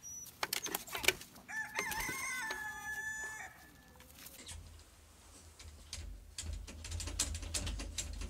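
A rooster crows once, a call about two seconds long that ends on a held, level pitch. Later a low hum and a quick run of sharp clicks follow.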